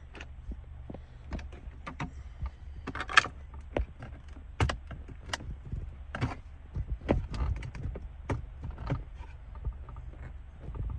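Scattered clicks and knocks of hands and tools working on plastic dashboard trim and screws, over a low steady hum.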